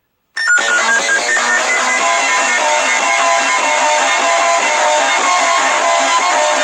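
Guitar music that starts suddenly after a moment of silence: quick, busy strummed and picked guitar notes at a steady loud level.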